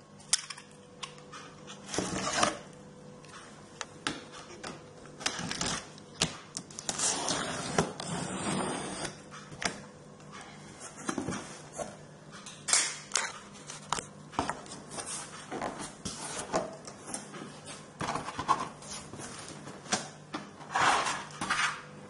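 Cardboard box being opened and handled: irregular scraping, rustling and knocking of the cardboard flaps and packaging.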